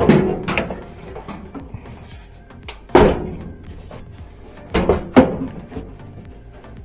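Several knocks and thunks on a clothes dryer's sheet-metal cabinet while its wire harness and seal strip are handled: one at the start, the loudest about three seconds in, and two close together near five seconds, with light rustling between.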